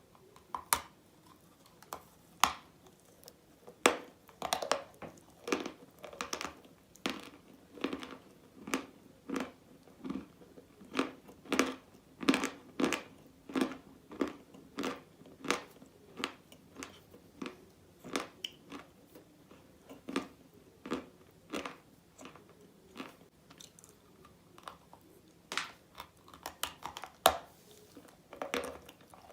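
A person biting and chewing chalk coated with red clay paste: sharp crunches come about once a second with softer chewing between them, ease off briefly in the later part, then pick up again near the end.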